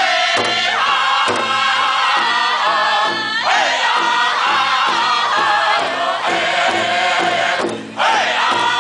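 Powwow drum group singing at the big drum: several men strike one large shared drum together in a steady beat while singing high-pitched in unison. The sound drops out briefly about a second before the end, then the drumming and singing carry on.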